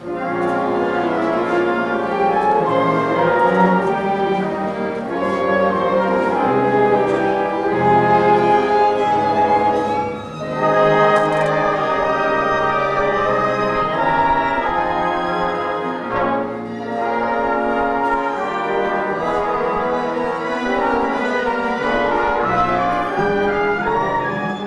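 High school pit orchestra playing instrumental music, with brass prominent, and a brief dip in loudness about ten seconds in.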